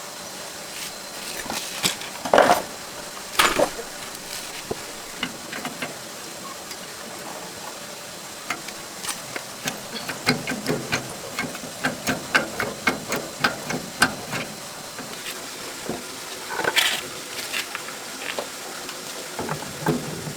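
Metal tools and tractor parts clinking and knocking while a bolt is fitted by hand: a few louder knocks early on and near the end, and a run of quick, light metallic clicks in the middle.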